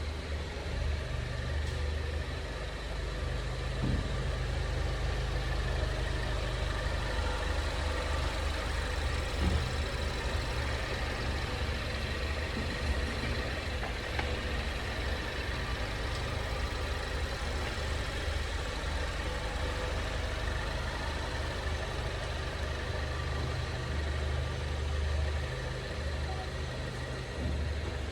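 Steady low road and running noise of a 2020 Ford Mondeo wagon on the move, with a few faint brief knocks; this is the abnormal chassis noise that has appeared one month after delivery.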